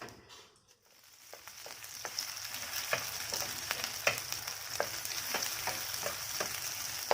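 Canned tuna and egg frying in a hot pan: a sizzle that builds up over the first two seconds and then holds steady, with sharp popping and spitting about every half second.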